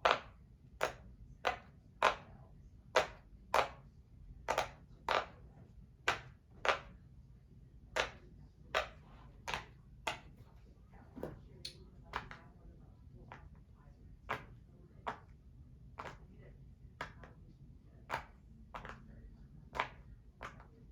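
Silicone pop-it fidget toy having its bubbles pressed one after another, a steady run of sharp pops about one and a half a second, growing fainter about halfway through.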